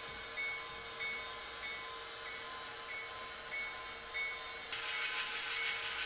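HO-scale model diesel locomotive's sound decoder playing a diesel engine through its small onboard speaker, with the locomotive bell ringing about one and a half strokes a second. The engine sound changes about three-quarters of the way through.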